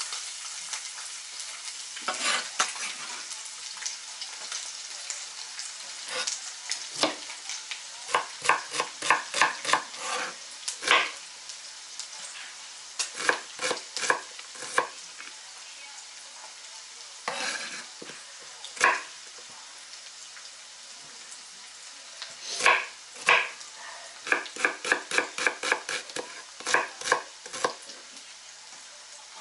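Internal pork fat frying in a pan with a steady sizzle, spitting now and then. Over it, a knife chops onion on a wooden board in several quick runs of strokes, about five a second.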